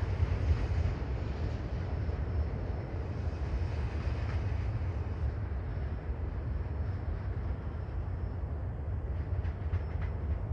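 Loaded freight train of auto-rack cars rolling past, a steady rumble of wheels on rail with no let-up.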